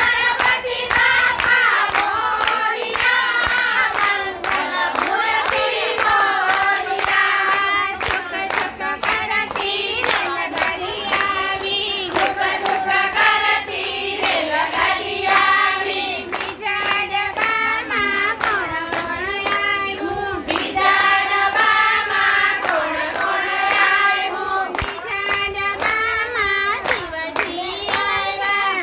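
A group of women singing a devotional song (bhajan) in unison, clapping their hands in a steady rhythm of about two to three claps a second.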